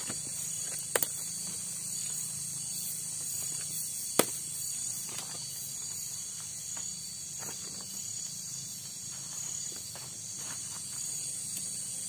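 Steady high-pitched chorus of forest insects at night. A short double click comes about a second in, and a single sharper, louder click about four seconds in.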